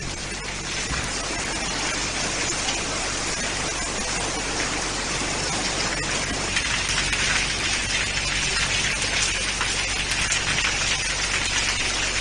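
Heavy rain pouring down in a steady, dense hiss, growing a little louder about halfway through.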